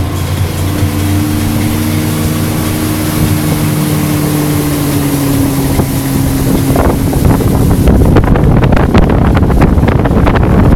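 Motorboat engine running steadily at towing speed, with water rush from the wake. Wind buffets the microphone and gets louder over the last few seconds.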